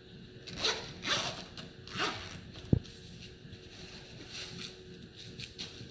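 Zipper of a small fabric pouch being pulled open in a few short strokes, with one sharp click a little before halfway and fainter handling later.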